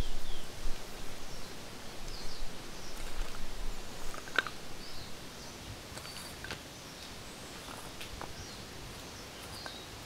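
Outdoor ambience with faint, short bird chirps and scattered light taps and rustles. It is busier in the first few seconds and settles to a quieter steady hiss after about six seconds.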